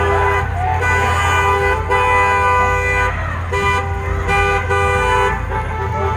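Car horns honking in a run of long held blasts broken by short gaps, over a steady low rumble.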